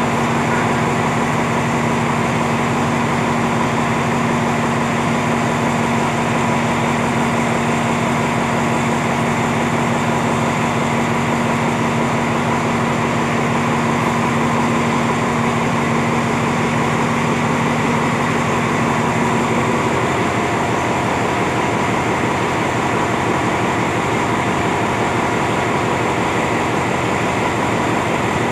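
Diesel passenger train standing at the platform with its engine running: a steady, loud hum with a lower tone that cuts out about twenty seconds in.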